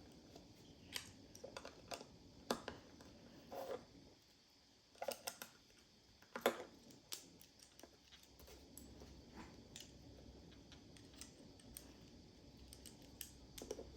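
Small plastic building bricks being handled and pressed together: faint, scattered light clicks and taps, the loudest about halfway through.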